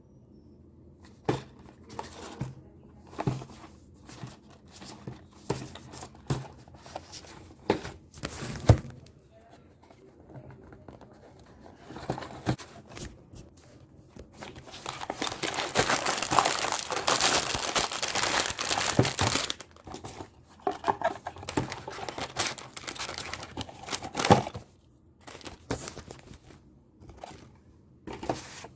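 Packaging of a building-block toy set being handled and opened: scattered taps and knocks, then about five seconds of continuous crinkling and tearing of wrapping about halfway through, then more light handling.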